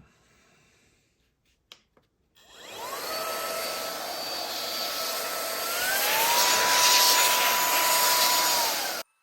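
Handheld electronics vacuum and dust blower whirring up about two seconds in, running loud with a whine that steps higher in pitch partway through, then cutting off suddenly near the end. A couple of small clicks come before the motor starts.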